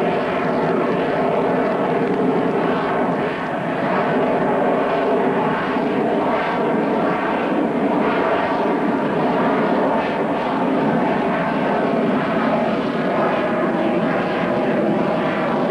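Twin jet engines of a Sukhoi Su-30 fighter running loud and steady. Faint tones sit within the noise, which dips slightly about three seconds in.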